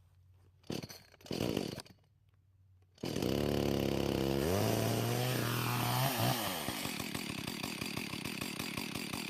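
Echo two-stroke chainsaw being started just after its carburetor's high-speed jet was adjusted. Two short pulls on the starter cord come first, then the engine catches about three seconds in, revs up and keeps running loudly at speed.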